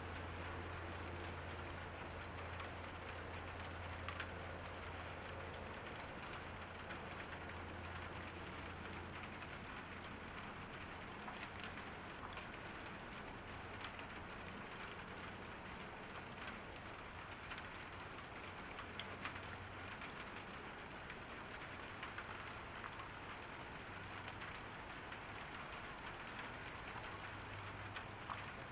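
Steady rain falling: an even hiss with scattered sharp drip taps, over a low steady hum.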